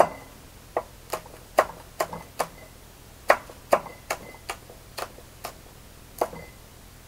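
Chef's knife slicing a green hot pepper into thin rings on a wooden cutting board: about a dozen sharp chops of the blade striking the board, at an uneven pace of about two a second.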